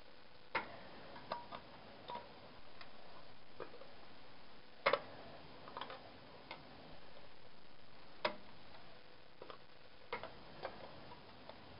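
Irregular sharp clicks and light knocks of small parts and hand tools being handled while a TV is taken apart for scrap, the loudest a double knock about five seconds in.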